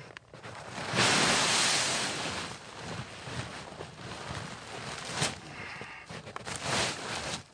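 Heavy canvas tent fabric rustling and flapping as it is lifted and let fall on the snow, loudest about a second in.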